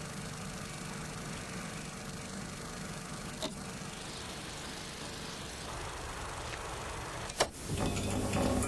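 Quiet empty-room tone with a sharp click about three seconds in, then a second, louder click near the end followed by a steady low electrical hum, like fluorescent ceiling lights switching on.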